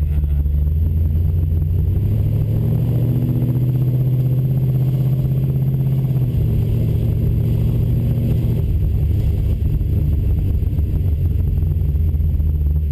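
1971 Chevrolet El Camino Super Sport's small-block Chevy V8 running under way. Its note climbs gradually for a few seconds, drops suddenly about six seconds in, then holds steady.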